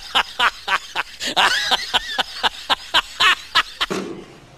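Exaggerated, cackling laughter in rapid, even 'ha-ha' pulses, about five a second, stopping about four seconds in.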